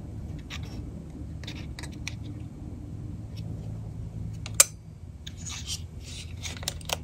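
Small clicks and scraping from the metal eject and head-lift mechanism of a disassembled Macintosh Plus 800K floppy drive being worked by hand, with one sharper click about halfway through. The mechanism lifts the head and drops back as it is meant to.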